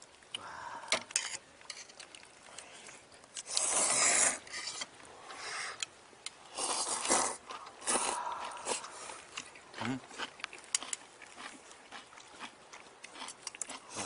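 Noodles in broth being slurped from a steel bowl in several loud slurps, the longest about four seconds in, with light clinks of chopsticks on the bowls.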